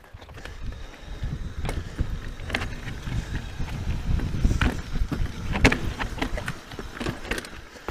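Scott Genius mountain bike rolling over a rocky dirt trail: a steady low rumble of tyres and air on the mic, with scattered clicks and clattering knocks from the bike over rocks, the loudest of them between about four and seven seconds in.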